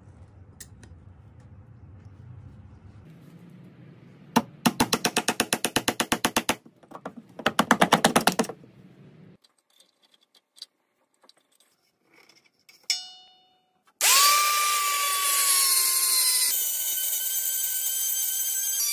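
A power drill running steadily for about five seconds near the end, with a whine that sags slightly under load as it drives a screw into wood. Earlier come two bursts of rapid clicking, about ten a second, and a short ringing tone.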